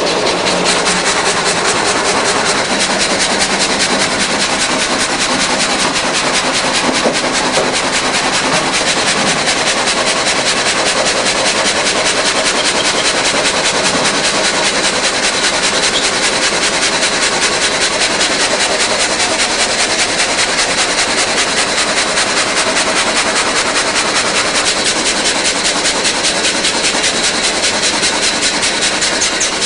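Multi-blade rip saw machine running, a loud steady mechanical noise with a constant high whine.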